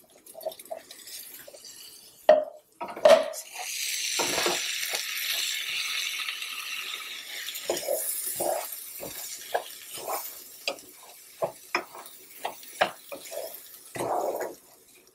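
Wooden spatula stirring basmati rice in a nonstick pan of melted butter and spices, the rice toasting. A couple of sharp knocks on the pan about two to three seconds in, then a steady hiss from the hot butter and rice that fades out, under a run of quick scrapes and taps of the spatula against the pan.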